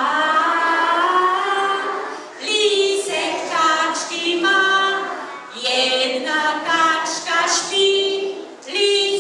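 Children and a woman singing a short lullaby together without accompaniment, in phrases with brief breaks between.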